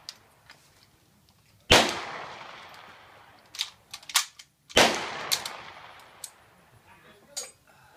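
Two loud gunshots about three seconds apart, each with a long echoing tail. Lighter clicks and knocks come in between and after them.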